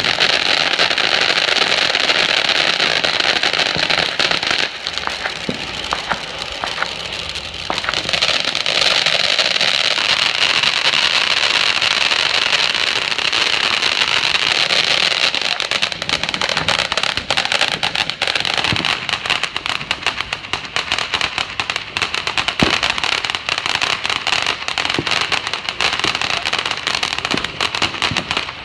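Firework fountains on a finale board spraying sparks with a continuous loud hiss, and a steady tone through about the first ten seconds. The hiss drops back around five seconds in and comes back strongly about three seconds later as another fountain lights. In the second half, dense crackling runs through it.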